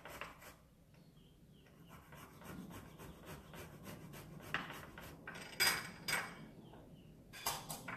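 Fresh ginger root being grated on a fine citrus-zest rasp grater: a run of uneven scraping strokes, loudest a little past the middle and again near the end.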